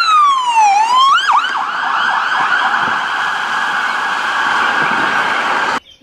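Police car's electronic siren: a wail gliding down in pitch and back up, switching about a second in to a fast, steady yelp warble that cuts off suddenly near the end.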